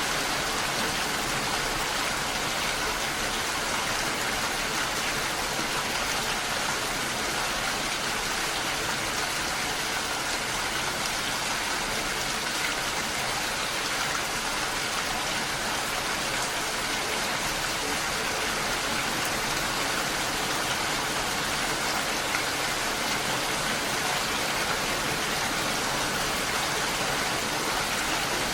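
Steady rain falling, an even hiss of drops that never lets up.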